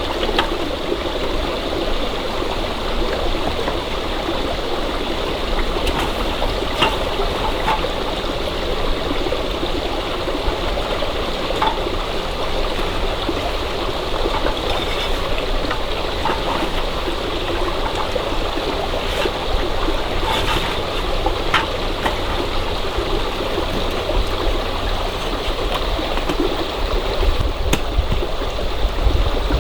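Stream flowing: a steady rush and trickle of water, with a few faint ticks and a low rumble that rises near the end.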